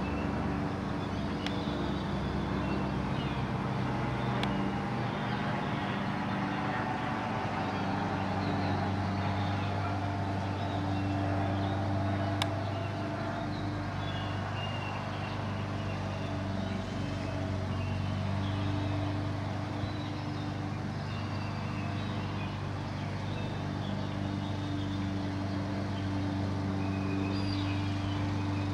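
A steady low mechanical hum over a constant background rumble, with a couple of faint clicks.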